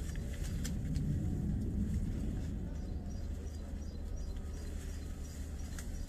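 A car passing by, its low rumble swelling about a second in and fading, over faint repeated bird chirps in the second half.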